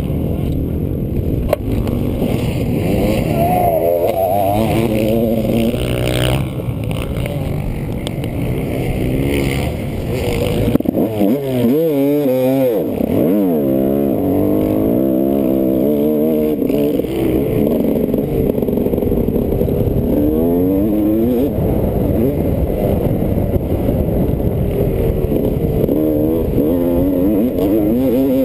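Motocross dirt bike engine heard on board, revving up and down as the rider works the throttle and gears. About eleven seconds in the revs drop off sharply, then climb back up.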